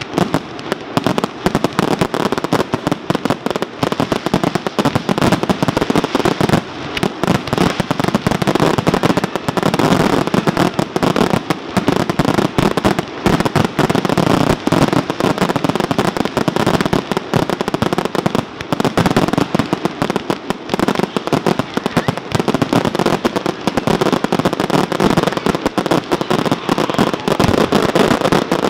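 Fireworks going off in a dense barrage: rapid bangs overlapping one another without a break.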